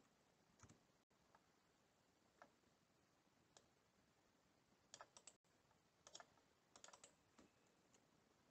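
Very faint, scattered computer keyboard and mouse clicks, a few single clicks and then quick clusters of several, heard over near silence as a terminal command is entered.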